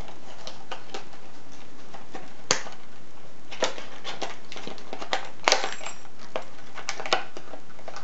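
Stiff plastic blister packaging crackling and snapping as a brass padlock is worked out of it, with scattered sharp clicks; the loudest are about two and a half and five and a half seconds in.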